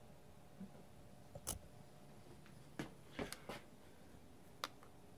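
A few scattered sharp clicks and light knocks from hands handling a PVC potato gun in its metal clamp stand, over a faint steady hum.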